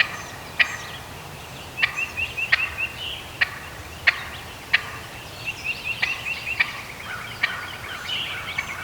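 Wild turkey hen calling while feeding: sharp single clucks about every second, between rapid runs of repeated high chirping notes.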